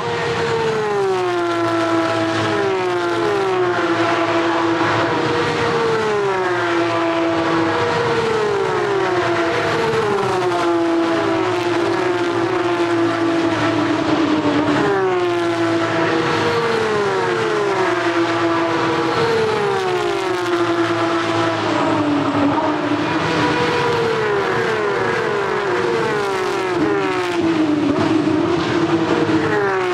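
Porsche 911 GT3 Cup race cars' flat-six engines at full throttle, passing one after another in a near-continuous stream, each engine note dropping in pitch as it goes by.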